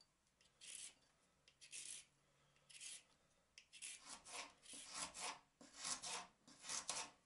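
Faint scrapes of a vegetable peeler drawn down a raw carrot, about one stroke a second. From about four seconds in, a knife slices the carrot into rounds on a bamboo cutting board: fuller cuts, a little faster.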